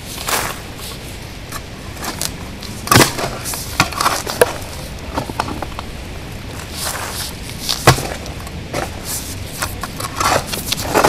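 Small hand shovel digging into soil and leaf litter: irregular scraping and chopping strikes, with the two loudest blows about three and eight seconds in.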